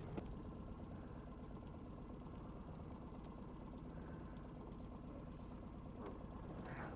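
Outboard motor idling steadily, faint.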